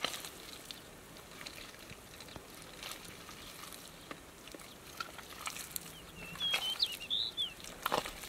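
Bare hands digging and squeezing thick wet mud: soft squelches and small wet crackles, with a louder wet squelch near the end. A bird chirps a few times about two thirds of the way through.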